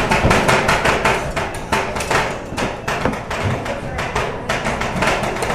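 Two metal spatulas chopping and tapping on a steel rolled-ice-cream cold plate, a fast, even run of sharp clacks as the freezing cream base is chopped and mixed before it is spread and rolled.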